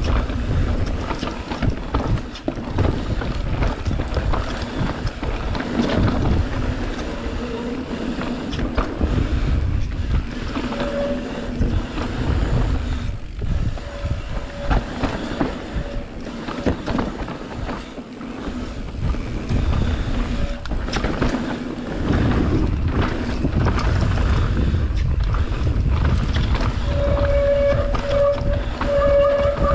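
Mountain bike riding fast down a dirt trail: wind buffeting the camera microphones, tyres rumbling over dirt and the bike rattling over bumps. A few short high squeals come and go, the longest near the end.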